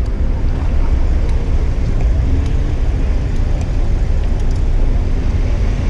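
Steady low rumble of road and wind noise while riding a Bird electric scooter along a city street.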